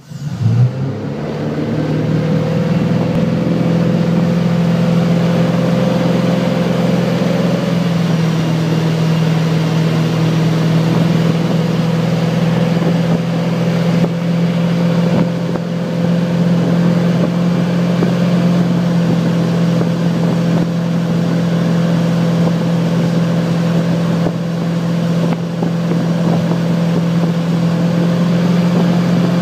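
Motorboat engine opening up suddenly to pull a wakeboarder out of the water, then running steadily at towing speed, with the rush of the boat's wake.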